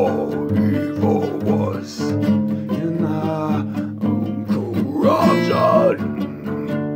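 Acoustic guitar strummed with a full, steady rhythm, and a man singing over it at times, most clearly near the end.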